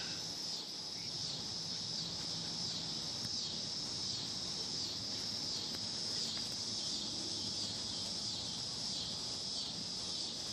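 A steady, high-pitched insect chorus that wavers gently in strength.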